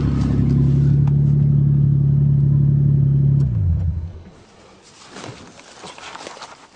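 1984 Toyota Cressida's engine idling steadily on seven-year-old gasoline, then switched off about three and a half seconds in, its pitch falling as it winds down and stops. Faint rustles and knocks follow.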